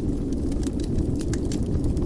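Wood fire burning in a fireplace: a steady low rush of flame with frequent, irregular sharp crackles and pops from the burning wood.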